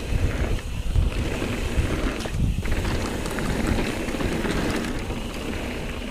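Wind buffeting an action camera's microphone as a mountain bike rolls fast down a dirt trail, with tyre noise and scattered clicks and rattles from the bike.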